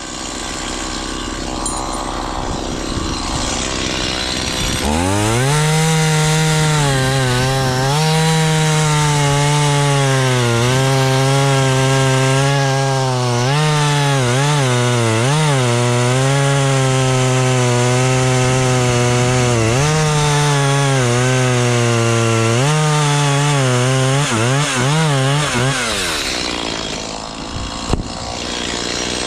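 Chainsaw running at high revs and cutting, for about twenty seconds from about five seconds in; its pitch repeatedly drops and recovers as the engine bogs under load in the wood. Before and after it there is a steady noisy hiss.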